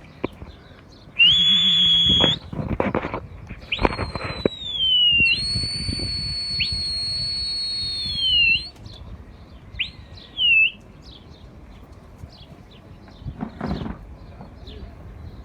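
A person whistling loud, shrill notes: one steady note, a falling glide, a long held note of about three seconds that dips at the end, and a short note near the middle. A few brief flutters sound in between and near the end.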